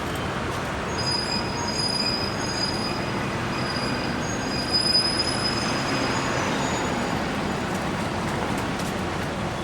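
Manhattan street traffic: a steady rush of passing vehicles. From about a second in, a high-pitched squeal comes and goes for about five seconds, loudest near the middle.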